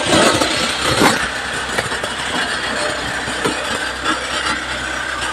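Wood chipper running: a steady machine drone under a dense grinding noise, with a few sharp knocks. It is loudest in the first second or so.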